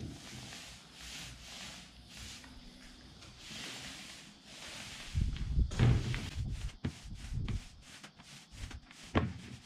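Paint roller spreading fiberglass resin across a timber floor sheet: soft, repeated swishing strokes. About halfway through, louder low thumps and sharp clicks take over.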